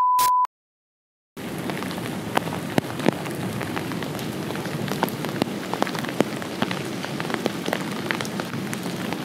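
A short steady 1 kHz censor bleep at the start, then after a second of silence, rain falling steadily into a puddle and onto wet ground, with many single drop hits heard through it.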